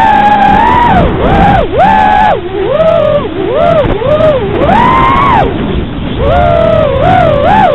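FPV racing quadcopter's motors and propellers whining, the pitch rising and falling again and again as the throttle is worked.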